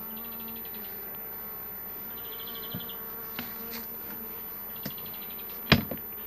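Honey bees buzzing steadily around an open hive, with a few light clicks and one sharp knock near the end as frames are worked in the hive box.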